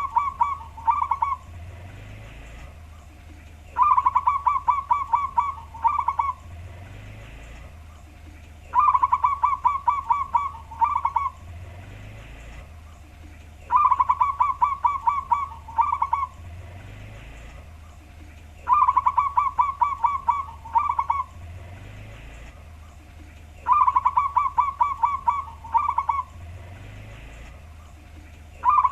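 Zebra dove (local wild perkutut) singing its cooing song, low-pitched as the uploader describes it. Each song is a quick run of notes ending in a short separate group, about 2.5 seconds long, repeated about every five seconds, six times.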